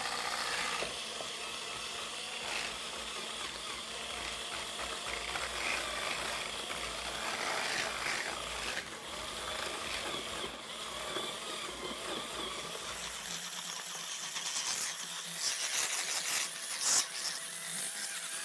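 HomeSmart cordless USB-rechargeable hand mixer running steadily with its whisk attachment, beating cream cheese into a milk and lemon-gelatin mixture until smooth.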